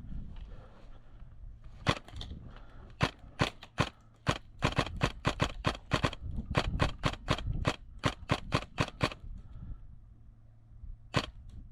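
Airsoft gunfire: a quick, uneven string of sharp single shots, about three a second for some seven seconds, then one more shot near the end.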